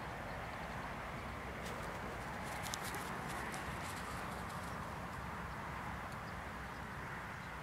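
Steady outdoor background noise, with a few faint clicks about two to three seconds in.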